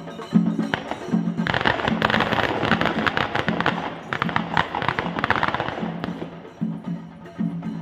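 A string of firecrackers crackling rapidly for about four seconds, starting a second and a half in, over the rhythmic beat of the festival procession's drums. The drum beat comes through on its own again near the end.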